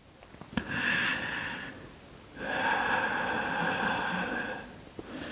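A woman's slow, audible breathing: a short breath about half a second in, then a longer one of about two seconds.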